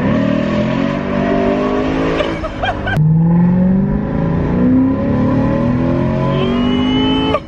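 Lexus RC F's 5.0-litre V8 accelerating hard through an Armytrix header-back exhaust, heard from inside the cabin, its note climbing in pitch. A sudden cut about three seconds in breaks it, and then the engine climbs through the revs again.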